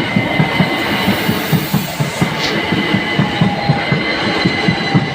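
A two-unit Class 375 Electrostar electric multiple unit passing over the level crossing at speed: rapid repeated thuds of its wheels over the rail joints with a rushing noise, and a steady high whine above.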